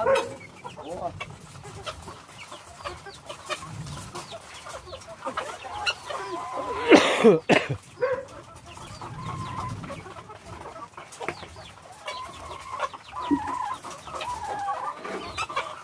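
Many caged laying hens clucking in short, overlapping calls, with one loud falling cry about seven seconds in.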